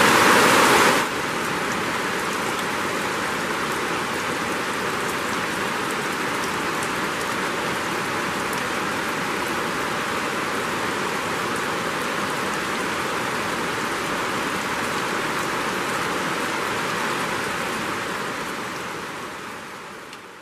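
Rain falling steadily, an even hiss that is louder for about the first second, then settles and fades out near the end.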